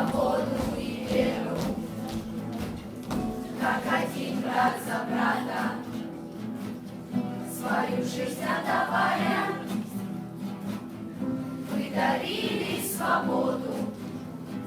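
Music: a backing track with sustained low tones and choir-like voices singing in phrases that come and go.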